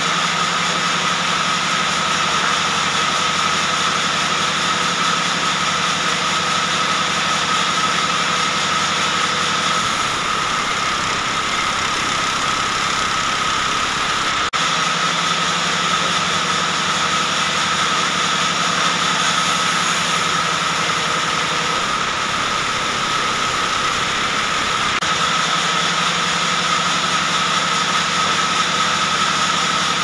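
Belt-driven band saw running steadily and ripping a wooden plank, a continuous machine noise with a steady high whine. Its lower hum drops away for a few seconds twice, as the load on the saw changes.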